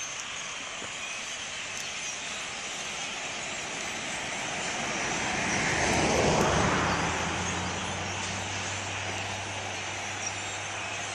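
A vehicle passing: a steady rush that swells to its loudest about six seconds in and drops in pitch as it goes by, leaving a low steady hum.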